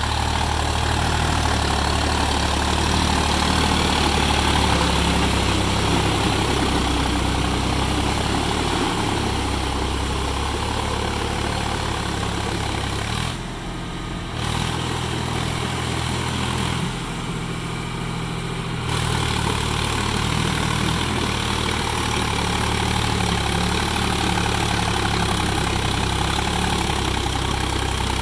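Sonalika tractor's diesel engine running steadily as it pulls an implement through a muddy, flooded field. The sound dips briefly twice in the middle.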